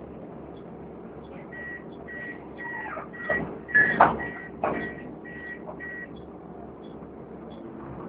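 Door warning beeps on a Volvo B7TL double-decker bus: about nine short high beeps, roughly two a second. Loud clunks from the door mechanism come in the middle of the beeping, over the steady hum of the diesel engine.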